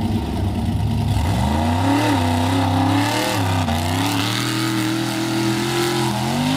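Mud-bogging monster truck's engine idling low, then revving hard as the truck pulls away about a second and a half in; the pitch climbs, dips briefly near the middle and climbs again as it accelerates across the dirt.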